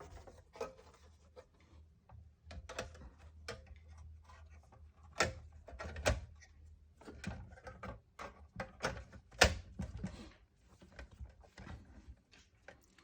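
Irregular clicks, taps and knocks as a PlayStation 3 cover is handled and fitted back over the console's board, with a few louder knocks in the middle.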